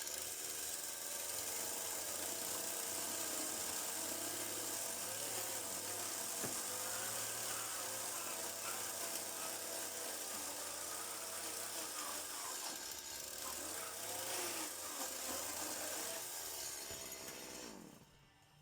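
Power tool running steadily, its pitch wavering as it works, then winding down and stopping near the end.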